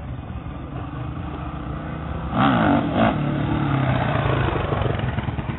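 Car engine running with a low rumble, revved hard twice in quick succession about two and a half seconds in, then held at a steady higher note.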